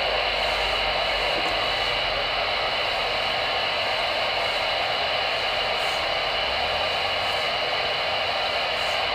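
Steady hiss of static from a CB radio's speaker on an AM channel, unbroken between transmissions.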